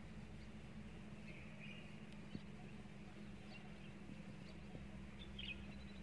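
A few faint, short bird chirps, about a second and a half in and again near the end, over a low steady hum.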